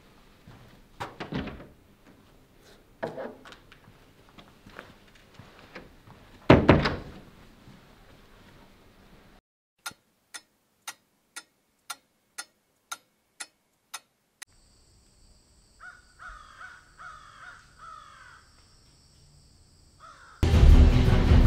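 A few thuds, the loudest about six and a half seconds in, then a wall clock ticking about twice a second. After that a steady high whine with a few short falling bird calls, and loud music starts near the end.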